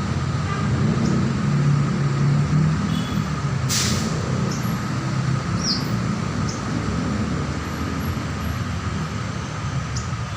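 Steady low mechanical rumble, like engine or traffic noise, over a faint steady high tone. A few short, faint high chirps sound over it, one falling chirp about halfway through, and there is a sharp click about four seconds in.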